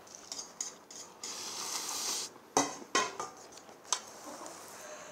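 Chopsticks clinking and scraping against a yellow aluminium ramen pot, with sharp clicks about two and a half, three and four seconds in. A slurp of instant ramen noodles lasting about a second comes a little over a second in.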